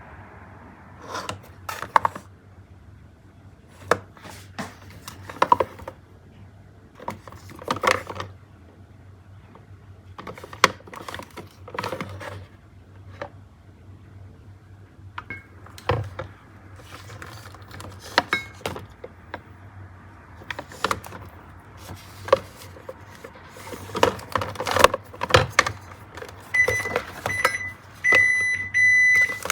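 Food and containers being handled in a refrigerator: scattered clicks, knocks and packaging rustles. In the last few seconds a refrigerator's open-door alarm beeps several times in quick succession.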